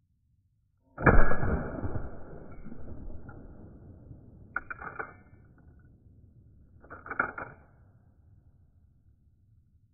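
A single shot from a replica Winchester 1866 lever-action carbine about a second in, the report echoing and fading over about three seconds. Then come two short bunches of metallic clicks about two seconds apart as the lever action is worked.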